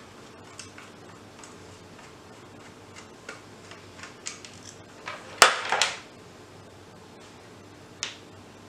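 Faint ticks and clicks of a Phillips screwdriver turning screws out of a plastic slot-car hand controller, with a sharp click about five and a half seconds in and a lighter tap near the end as a screw is set down on the wooden bench.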